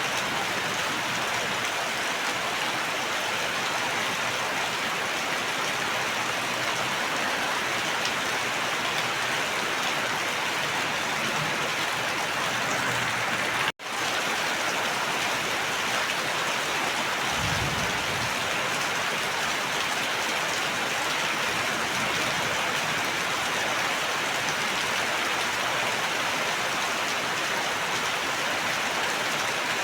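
Steady heavy rain, an even hiss of many drops falling on surfaces. The sound cuts out for an instant about halfway through, and a short low rumble comes a few seconds later.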